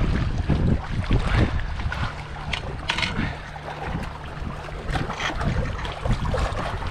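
Wind buffeting the microphone in a heavy, uneven low rumble, with a few brief scrapes or clicks about two and a half, three and five seconds in.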